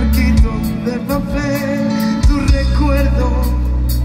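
Live band music: drums with regular cymbal hits, electric bass guitar and acoustic guitar, with a wavering melody line over them.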